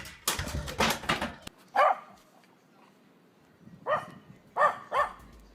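A dog barking: one bark about two seconds in, then three short barks in quick succession near the end, after some scuffling noise at the start.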